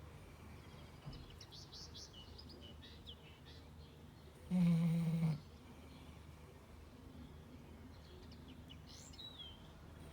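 Dog snoring in its sleep: one loud, buzzy snore about halfway through, lasting just under a second, with another snore beginning right at the end.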